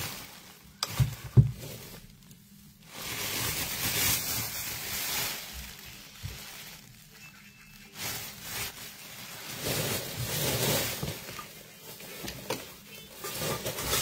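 Close rustling and handling noise as plastic bags and a knit sleeve rub against the phone, with two dull knocks about a second in.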